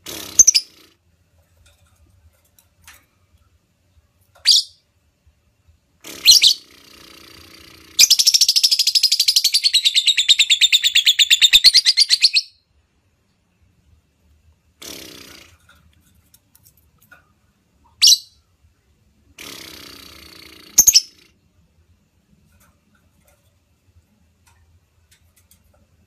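Female lovebird calling: sharp, shrill chirps a few seconds apart, and a fast chattering trill lasting about four seconds about a third of the way in.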